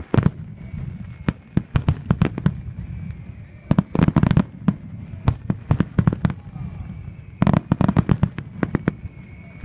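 Fireworks display going off: clusters of rapid, sharp cracks and bangs over a steady low rumble, with dense bursts about two, four and eight seconds in.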